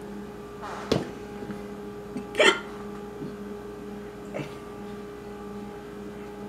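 Kitchen handling sounds: a sharp knock about a second in and a louder short sound about two and a half seconds in, with a faint one later, over a steady low hum.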